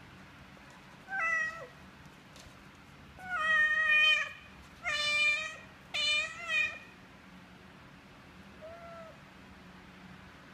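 Adult cat meowing six times in a row, with a faint, short sixth meow near the end.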